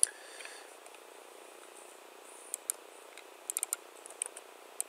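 Computer keyboard and mouse clicks over a faint steady hiss: one sharp click at the start, then a few scattered keystrokes, with a quick cluster of about four past the halfway point.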